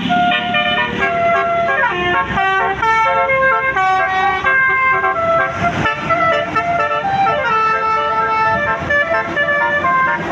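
Tour bus's multi-tone basuri telolet horn playing a tune of held notes that change in steps, several tones sounding together.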